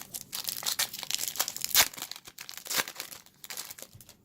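Foil wrapper of a Topps Chrome baseball card pack crinkling and tearing as it is opened: a dense run of crackles, loudest a little under two seconds in, dying away near the end.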